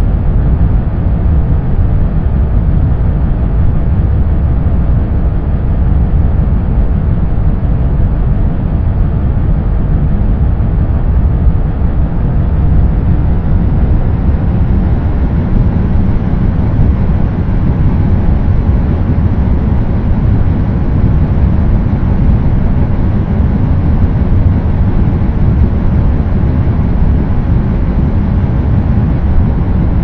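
Steady, low rumbling idle of a big diesel-like truck. It is actually an edited recording of some other source, pitch-shifted to imitate a truck idling, and it turns slightly brighter about halfway through.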